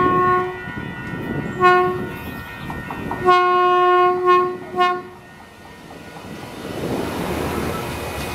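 NCTD Sprinter diesel railcar sounding its horn as it approaches: the end of a long blast, a short blast, a long blast and another short blast. Then comes the growing rumble of the railcar rolling in past the platform.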